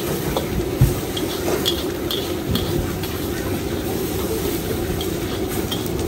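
Noodles stir-fried in a wok over a gas burner: a steady rushing hiss and sizzle, with the metal wok ladle scraping and clinking against the pan and a knock about a second in.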